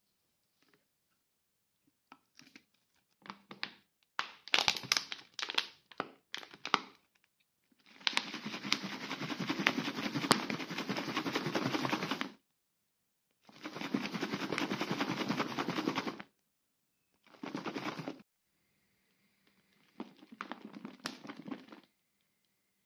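A plastic water bottle holding a coffee mixture being shaken hard in four spells, the longest about four seconds, its contents sloshing and rattling as they whip into foam. Before that, a few seconds of short, scattered handling noises.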